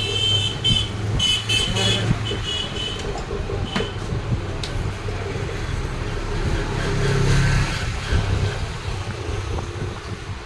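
Street traffic going by, with a vehicle horn beeping in short, broken blasts during the first three seconds and a passing vehicle swelling louder about seven seconds in.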